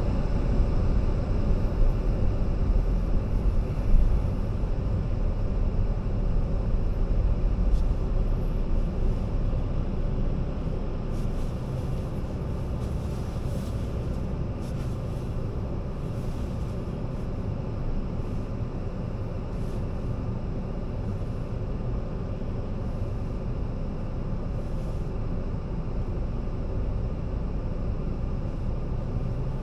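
A car driving, its steady low road and engine rumble a little louder over the first ten seconds before settling, with a single short knock about four seconds in.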